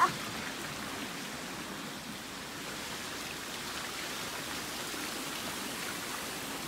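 Steady rush of water running down waterpark slides and splashing from pool fountains. A short, sharp rising squeak at the very start is the loudest moment.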